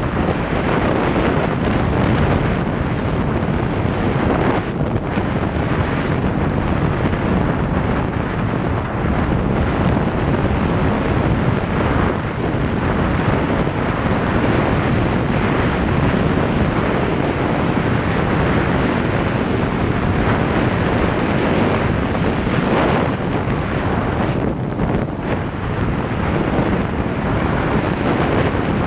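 Steady wind rushing and buffeting over the microphone of a camera on a moving snowmobile, mixed with the snowmobile running across the snow.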